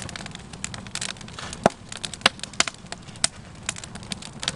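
Wood campfire crackling in a metal fire ring: irregular sharp pops and snaps, a few much louder than the rest, over a low steady rumble.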